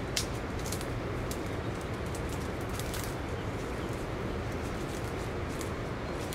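Footsteps crunching irregularly through dry fallen leaves as a person walks closer, over a steady background noise.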